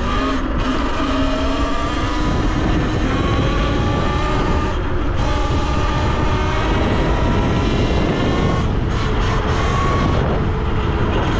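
Talaria Sting electric dirt bike being ridden off-road: the motor's whine slides up and down in pitch with the throttle, over a steady rush of wind and tyre noise.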